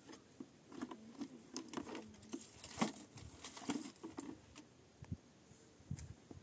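A string of light, irregular taps and clicks.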